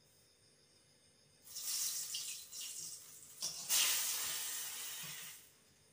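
Hot refined oil sizzling in a wok as something is dropped in and stirred with a spatula. The sizzle starts about a second and a half in, dips briefly, swells again and stops shortly before the end.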